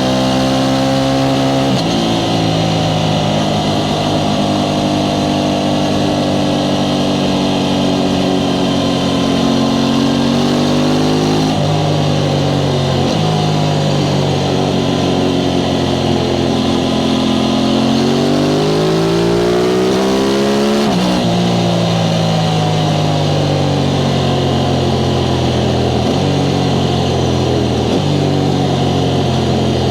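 Aprilia Tuono 660 Factory's parallel-twin engine running through its stock exhaust while riding. The engine note climbs under acceleration and steps down sharply at gear changes, with a long climb about two-thirds of the way through that ends in a sudden drop, then falls off slowly.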